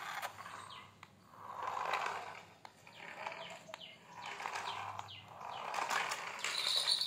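Small electric motor and gears of a toy remote-control car whirring in several bursts as it drives across a dirt floor, then bumping into a plastic toy airplane near the end.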